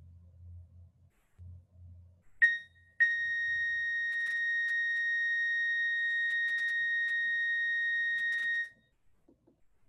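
A high, steady test tone played as a pitch in a listening exercise. It blips briefly, then from about three seconds in holds level for nearly six seconds and cuts off sharply, with a few faint clicks over it.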